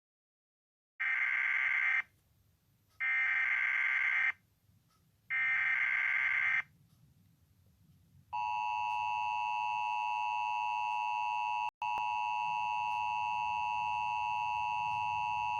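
Emergency Alert System tones. Three short buzzy data bursts of about a second each come first, the SAME header that opens an alert. About eight seconds in, the steady two-tone attention signal starts and holds, announcing that an emergency message follows.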